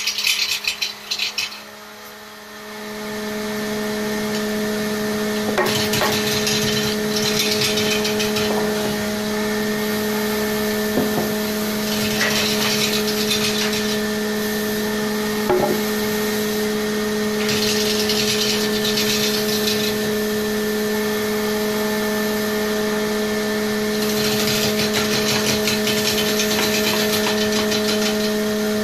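The electric motor of a homemade wood lathe spins up two to three seconds in and then runs with a steady hum. Over it, a turning tool cuts into a large spinning wooden cylinder in about four passes of two to three seconds each.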